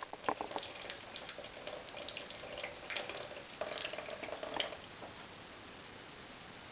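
Duckling dabbling and pecking in its food and water dish: quick irregular clicks and small drips and splashes that stop about five seconds in, leaving only a faint steady hiss.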